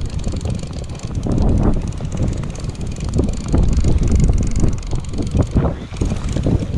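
Strong wind buffeting the microphone, a loud low rumble that swells and dips in gusts, over choppy sea water washing around a small boat.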